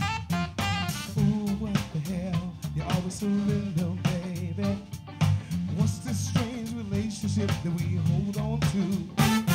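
Live funk band playing, heard through the soundboard feed: a drum kit and bass groove with electric guitar and Hammond organ, and a lead voice singing over it.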